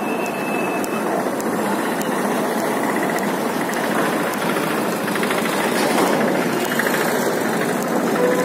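Busy street traffic: vehicle engines running steadily, with people's voices mixed in.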